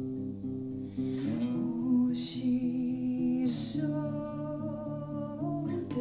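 A woman singing a slow song over an electric guitar picking a repeating pattern of notes.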